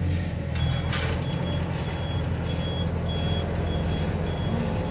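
A vehicle's reversing alarm beeping about twice a second, starting about half a second in, over a steady low hum.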